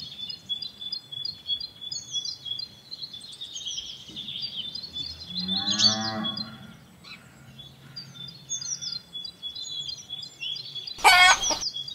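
Farmyard sounds: small birds chirping, a cow mooing about halfway through, and a loud wavering animal call near the end.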